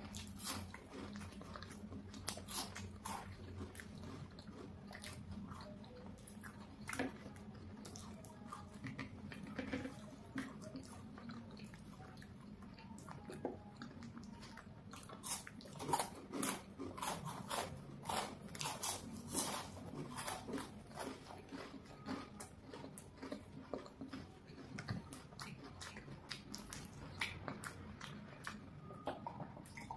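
Two people biting and chewing chocolate bars close to the microphone: many sharp bite clicks over soft chewing, thickest about halfway through.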